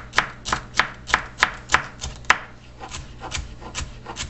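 Kitchen knife dicing celery on a wooden cutting board: quick, even knife strokes knocking on the board, about three a second, turning softer and less regular after about two seconds, with a few sharper strokes near the end.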